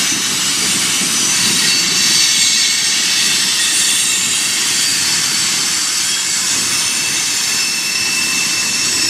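Freight train of tank cars rolling past with a loud, steady squeal: several high thin tones and a hiss over the rumble of the wheels on the rails. It sounds like every brake on the train is applied.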